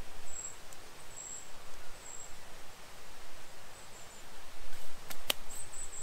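Forest ambience with short high-pitched chirps repeating every second or so, and two sharp clicks just after five seconds in.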